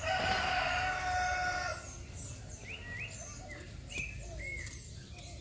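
A rooster crows once, one long call of about two seconds, followed by a few short bird chirps.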